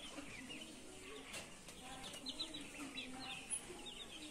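Young chicks peeping as they forage, many short falling peeps overlapping, faint, with soft lower calls underneath.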